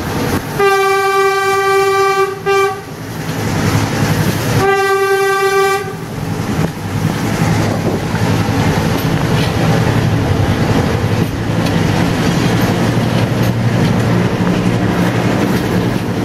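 Diesel train's horn sounding two steady single-note blasts, the first about two seconds long and the second shorter, then the continuous rumble and clatter of the train running on the rails, heard from an open carriage window.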